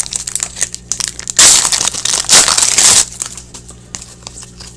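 A foil hockey card pack wrapper being crumpled, with a loud crinkling rush in the middle, after quick light clicks of cards and packaging being handled.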